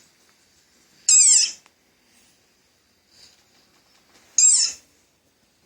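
Recorded animal cry played from a screen's speaker. It is a short, high call that falls steeply in pitch, heard twice about three seconds apart.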